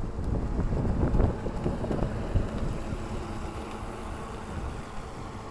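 Wind buffeting the microphone in uneven gusts, heaviest in the first two or three seconds, then easing to a steadier, quieter rush.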